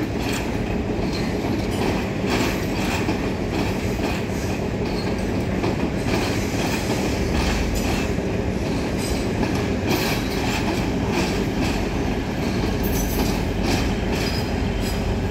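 Carriages of a Class S11 diesel multiple unit rolling slowly past, with a steady rumble and the wheels clacking irregularly over rail joints and points.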